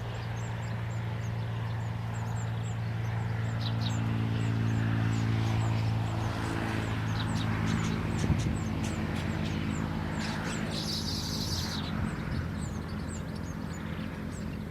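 A steady, low engine drone runs underneath, easing a little after about six seconds. Small birds chirp high and repeatedly over it, and there is a brief hiss about eleven seconds in.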